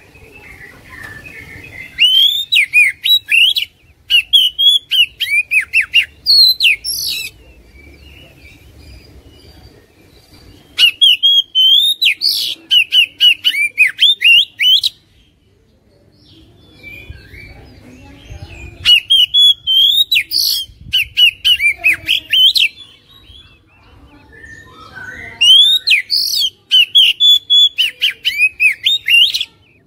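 Oriental magpie-robin (kacer) singing: four loud bouts of rapid whistled and chattering phrases, each about four or five seconds long, with pauses of a few seconds between them.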